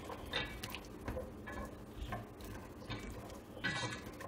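Plastic whisk stirring diced onion and melting butter in a nonstick pot: light, irregular taps and scrapes against the pot, several over a few seconds.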